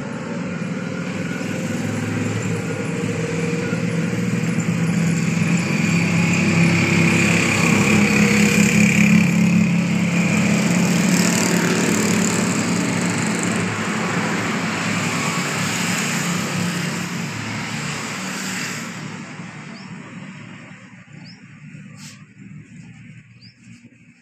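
A motor vehicle's engine passing by: it grows louder to a peak about eight to ten seconds in, then fades away near the end.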